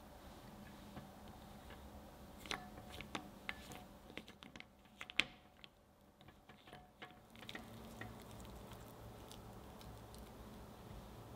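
Silicone spatula pushing pieces of white chocolate and butter around a glass bowl set in hot water to melt them, with a run of small clicks and taps against the glass, the sharpest about five seconds in. In the last few seconds it turns to softer stirring of the melting chocolate.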